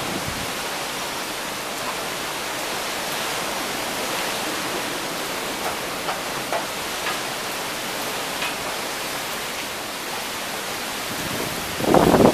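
Cyclone Hudhud's heavy rain and strong wind making a steady, even rush, with a louder gust near the end.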